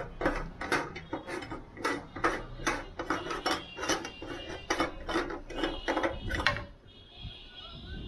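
Metal meat grinder clacking in a steady rhythm, about three sharp metallic knocks a second, then stopping about six and a half seconds in.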